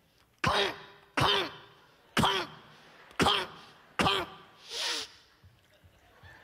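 Mouth-made sound effects into a microphone imitating a velociraptor: six short, sharp, throaty cries, each falling in pitch, coming about once a second.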